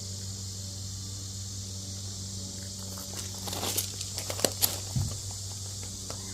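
Rustling and a quick run of sharp clicks, about halfway through, from hands handling wiring and small plastic parts, over a steady low hum and a steady high hiss.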